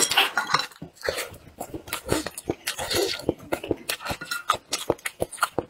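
Close-miked eating sounds: wet smacking, sucking and chewing as braised crucian carp is stripped off its backbone in the mouth, in a quick, irregular run of small clicks.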